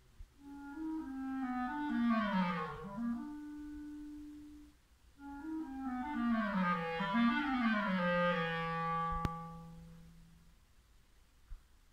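Clarinet playing two phrases of a classical piece, each sweeping down into the low register; the second settles on a long held low note. A small click sounds during that held note.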